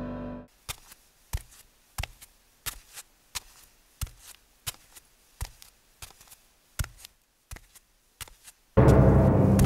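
Music dies away at the start, then a run of sharp, evenly spaced clicks, about three every two seconds, over near silence. Loud music cuts in suddenly near the end.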